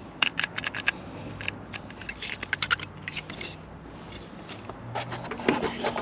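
Small clicks and scraping of a new chrome exterior door handle and its lock cylinder being handled, in two quick flurries, the first right at the start and the second about two seconds in. A faint low hum runs underneath.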